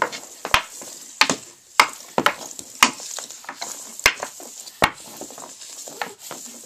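Hockey stick blade stickhandling a red 4 oz fly puck on a shooting pad: sharp clacks of the blade hitting the puck, irregularly about once or twice a second, with the scrape of blade and puck sliding across the pad between them.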